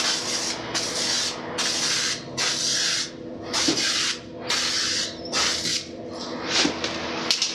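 Spray can of primer hissing in short bursts, about seven quick passes each under a second, laying light coats of primer on a plastic motorcycle fairing panel.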